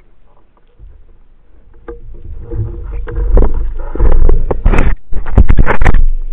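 Water sloshing and rushing against the camera, quiet at first and then loud and choppy from about two seconds in, with sharp knocks mixed in.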